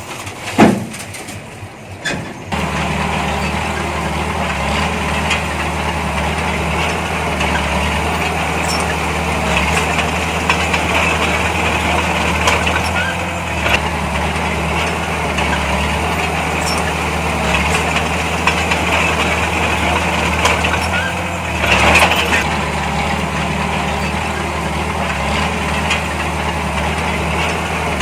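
Heavy diesel engine of earthmoving machinery running steadily, starting abruptly about two and a half seconds in after a sharp knock. There is a short louder noise about 22 seconds in.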